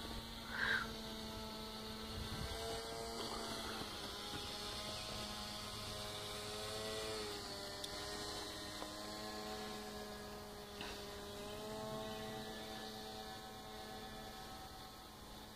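RC paracopter's propeller motor running overhead, a steady hum of several tones whose pitch drops a little partway through and rises again later as the throttle changes. A brief high chirp sounds about half a second in.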